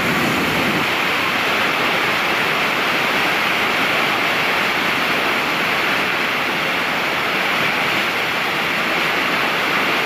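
Large waterfall: a steady, loud rush of falling water.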